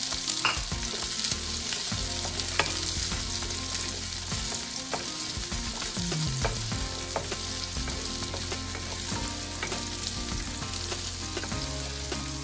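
Chopped onion sizzling in hot oil in a nonstick pan, with irregular scrapes and taps of a wooden spatula stirring it.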